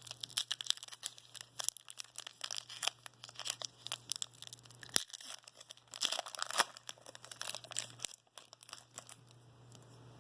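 A foil trading-card pack wrapper being torn open and crinkled by hand, a dense run of crackles that thins out near the end.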